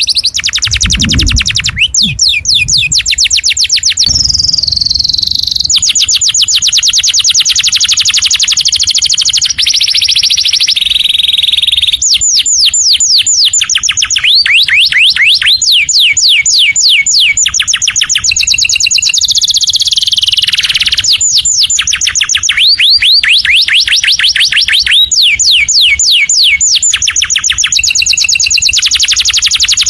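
Canary singing a long, loud song made of fast trills: rapid runs of identical high notes, each run giving way to a new trill every second or two with hardly a break.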